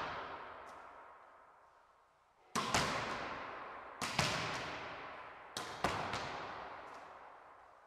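A volleyball being spiked against a wall in an echoing gym: three times, about a second and a half apart, a sharp slap of the hand on the ball is followed a split second later by a second smack as the ball hits and rebounds. A good spike is judged by this crisp slap.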